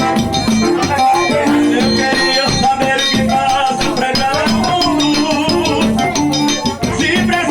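Accordion (sanfona) playing a lively northeastern Brazilian dance tune, its melody moving in quick held notes over steady percussion.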